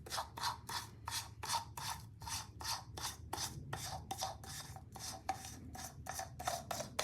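Repeated rasping, rubbing strokes, about three a second and fairly even, as the Villiers carburettor is worked apart by hand.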